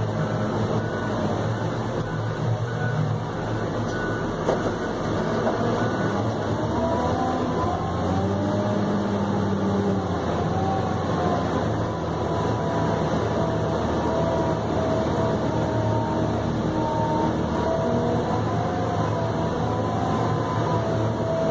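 New Holland RG140B motor grader running, heard from inside its cab: a steady diesel engine hum, with a higher wavering whine coming in about six seconds in.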